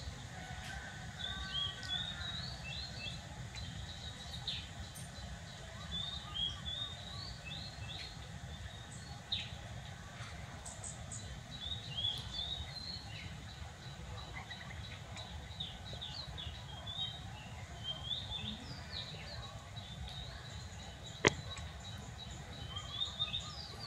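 Short high chirps and squeaks, coming in clusters again and again, over a steady low hum. A single sharp click about 21 seconds in.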